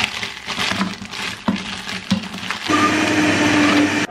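Countertop blender blending a fruit smoothie with a few pieces of mango just added. A few knocks come in the first couple of seconds, then about two and a half seconds in it settles into a loud, steady whir.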